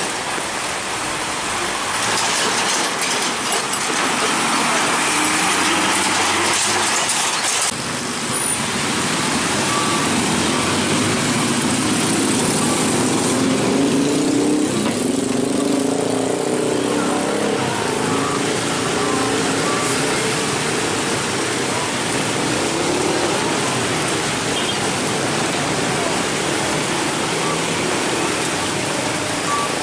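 Heavy road traffic: trucks passing with steady engine and tyre noise, the sound changing abruptly about eight seconds in.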